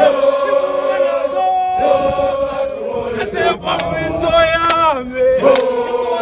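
Crowd of protesters singing a struggle song (igwijo) together, many voices holding long chanted notes, with occasional hand claps.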